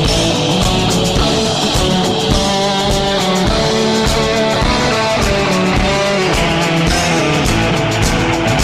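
Instrumental rock music: guitar over a steady beat, with no singing.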